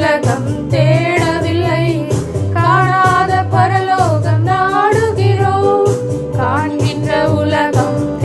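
Two women singing a Tamil Christian worship song in unison over an electronic keyboard accompaniment with a steady beat and bass line.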